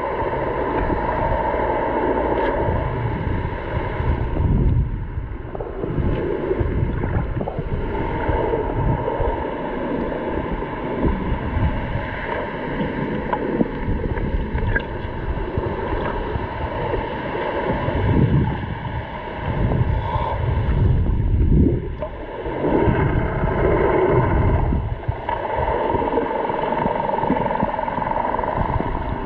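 Muffled underwater sound of swimmers moving through the water: irregular rushing and bubbling surges from kicking and strokes, over a steady hum.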